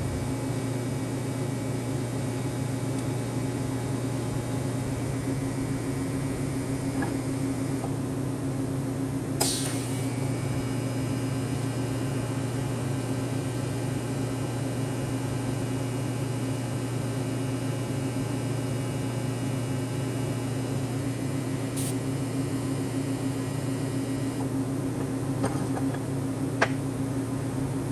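Steady low mechanical hum, unchanging throughout, with a few short sharp clicks, the loudest about a third of the way in and near the end.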